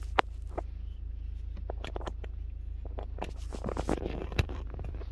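Scattered clicks, taps and scraping as a USB stick is fumbled into a car's USB port and the camera is handled, with a sharp click about a quarter of a second in and another near the end, over a steady low hum.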